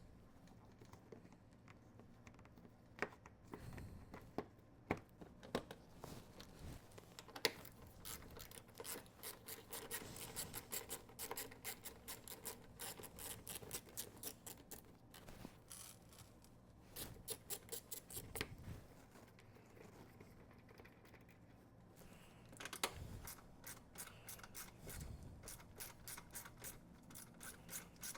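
Hand socket ratchet clicking in quick runs while the 10 mm bolts of the undercarriage shield are undone, with a few sharp knocks and scrapes in between.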